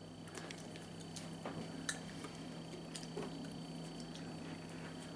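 Quiet room tone with a steady low hum and a few faint, scattered light ticks.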